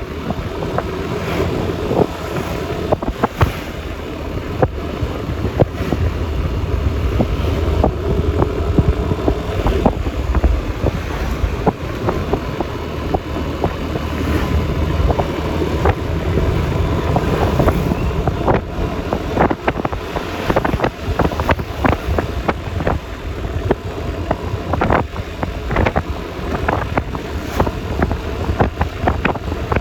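Yamaha Lexi LX 155 scooter's single-cylinder engine running at road speed, mixed with road noise and wind buffeting the microphone, with many short knocks throughout.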